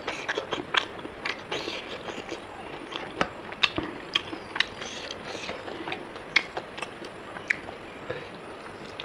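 A person chewing a mouthful of rice and pork, with irregular sharp wet clicks and smacks of the mouth several times a second.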